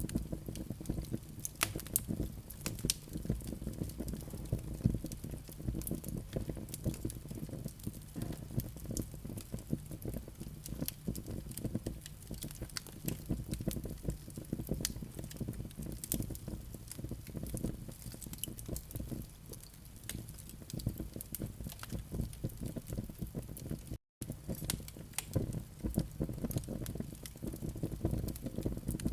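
Burning coals and flames in a fireplace, crackling with many small irregular pops and snaps over a low steady rumble. The sound cuts out for a split second about three quarters of the way through.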